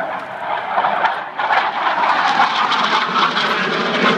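Military jet aircraft flying low and slow overhead, with gear down and flaps extended. Its engine noise swells over the first second or so, then holds loud and steady.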